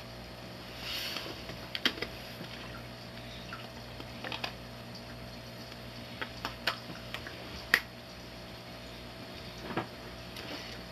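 Steady low room hum with a few short, scattered clicks and small taps.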